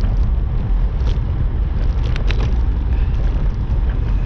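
Steady low wind rumble buffeting the microphone while riding along the road, with a few short clicks about one and two seconds in.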